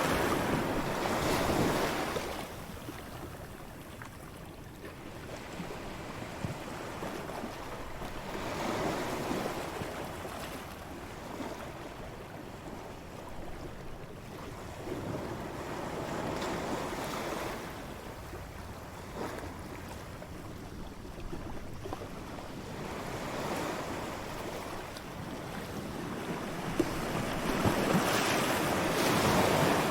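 Ocean surf on a beach, waves breaking and washing in, swelling and falling away every several seconds. The loudest surges come at the start and near the end.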